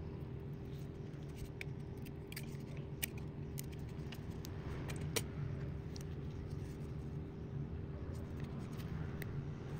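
A steady low background hum runs under small, scattered clicks and ticks from hands handling soft foam rubber pieces and a plastic glue bottle. The two sharpest clicks come about three and five seconds in.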